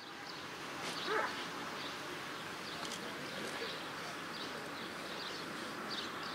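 Quiet outdoor ambience with birds chirping on and off throughout, and a brief faint call about a second in.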